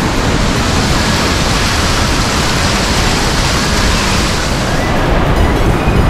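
Waterfall in heavy flow: a loud, steady rush of falling water and spray close by.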